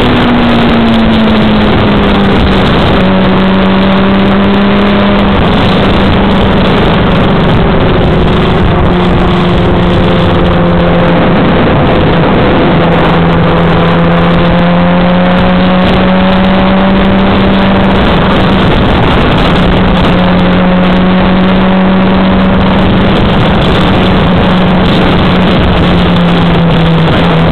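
Onboard sound of a Yamaha R6 motorcycle being ridden: its inline-four engine holds a steady note under heavy wind rush on the microphone. The engine note falls in pitch over the first two seconds, then stays nearly level.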